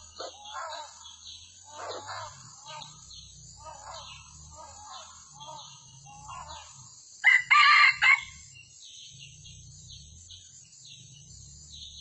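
Red junglefowl rooster crowing once, loud and brief, about seven seconds in, after a run of softer, short clucking calls.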